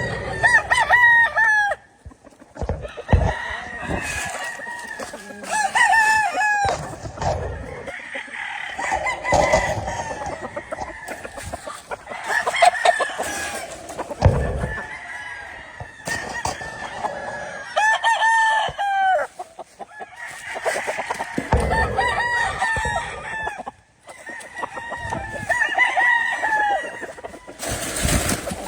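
Several gamefowl roosters crowing again and again, their crows overlapping one another.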